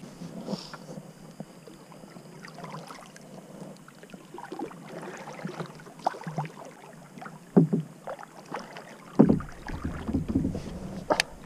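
Kayak paddling: water splashing and dripping off the paddle blades on each stroke, with a few sharp knocks against the plastic hull, the loudest near the end.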